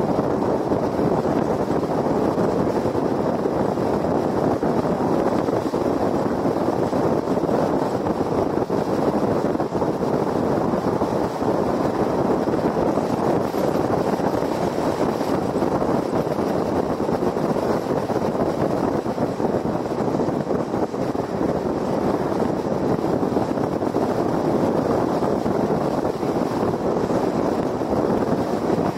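Steady road noise of a car cruising at highway speed on a concrete freeway: tyre roar and wind rush, even throughout with no changes.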